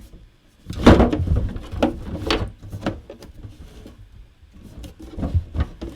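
Hard plastic model-kit parts being handled and worked together on a table: a loud knock about a second in, then scattered clacks and clicks, with another cluster of knocks near the end.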